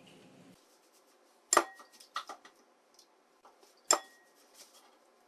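Sharp clinks and taps of kitchenware against a bowl while eggs are being prepared for beating: two loud knocks about two and a half seconds apart, with smaller clinks between and after them.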